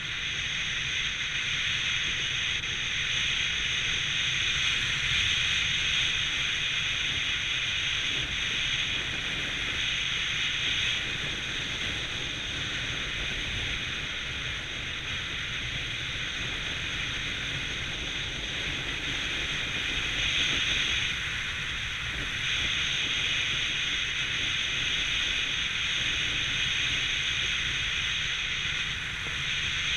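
Steady rush of air over the camera microphone during a descent under a gliding parachute canopy, swelling and easing slightly.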